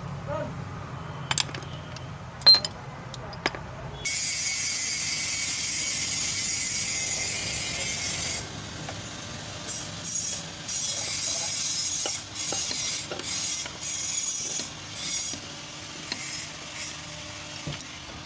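Hand ratchet with socket turning a lower control arm bolt on a car. A few sharp metal knocks in the first few seconds, then several seconds of continuous fast ratchet clicking, then clicking in short strokes with brief pauses.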